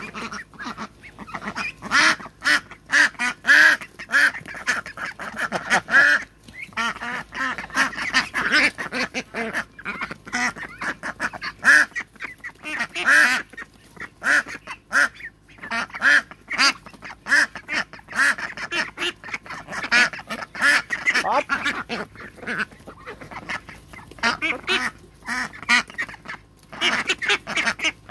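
A flock of young runner ducks calling and quacking continually in overlapping, excited calls while they snatch at food held out by hand.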